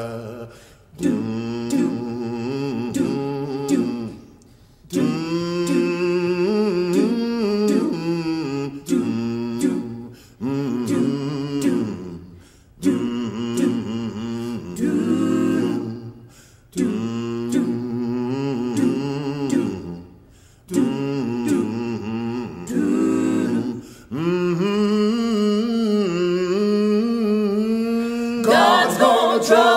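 A cappella vocal ensemble singing in harmony, in phrases of a few seconds each with a short break between them. Near the end the voices come in louder and higher.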